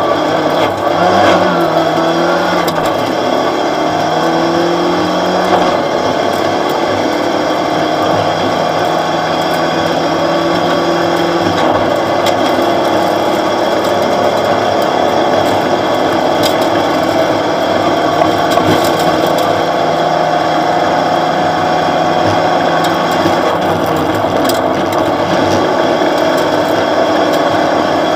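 Opel Astra OPC rally car's engine running hard under load, heard from inside the stripped cabin, with gear and road noise. The pitch shifts a few times in the first six seconds, then holds fairly steady.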